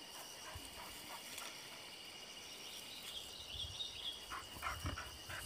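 Faint, steady high trilling of insects such as crickets. In the last couple of seconds come soft rustles and light thumps in dry pine needles as a dog and a monitor lizard shift about.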